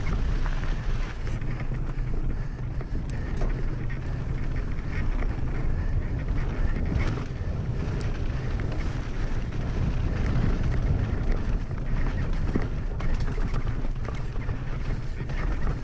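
Mountain bike descending fast over loose dirt and gravel: a steady rumble of wind on the microphone and tyres on the trail, with scattered sharp clicks and rattles.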